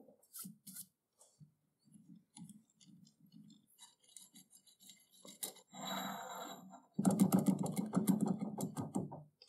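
Light metallic clicks and scrapes of hand work on a stopped metal lathe, an Allen key turning cap screws in a faceplate fixture. Near the end comes a louder, rough metal scraping and clicking for about two seconds.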